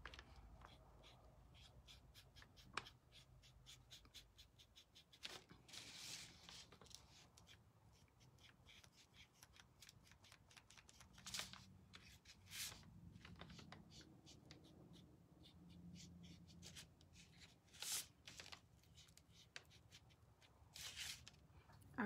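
Near silence, broken by faint clicks, taps and scrapes of small wooden cutout letters being handled and set down on a table.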